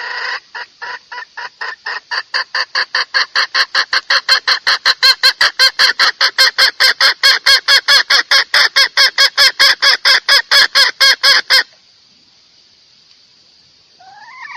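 Chicken clucking in a rapid, very even series of about four calls a second that stops abruptly near the end. Just before the end a different rising call begins.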